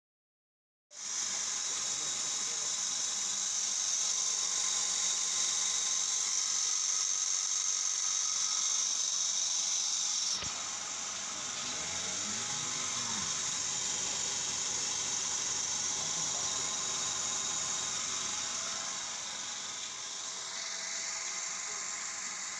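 Milking machine's vacuum pump running, a steady high-pitched hiss that drops suddenly in level about ten seconds in.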